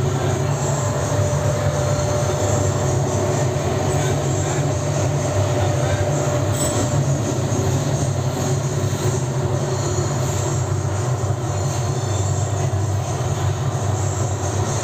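Gas-fired furnace for a die casting machine running: a steady, loud roar with a low rumble and a faint steady whine.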